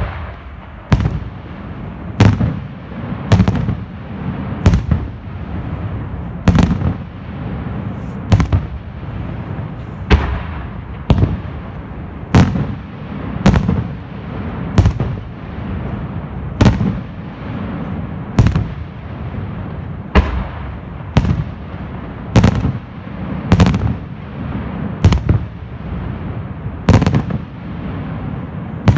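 Pirocilento aerial firework shells bursting in a steady barrage, a sharp bang about once a second with a continuous din between the bangs.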